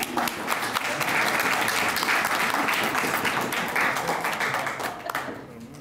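Applause: many people clapping together in a dense patter, which thins out and dies away near the end.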